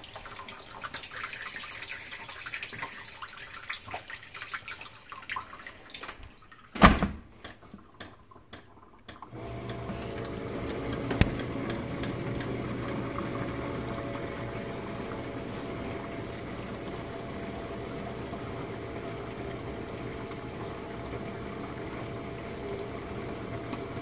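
Jenn-Air dishwasher: water dripping inside the open tub, then a loud thud of the door shutting about seven seconds in and a few clicks. About nine seconds in, the wash pump starts up again and runs steadily with a low hum and the wash of circulating water.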